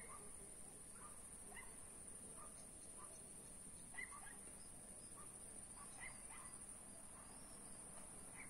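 Faint dusk ambience: a steady high-pitched insect trill, with short chirps from small animals scattered through it every half second or so.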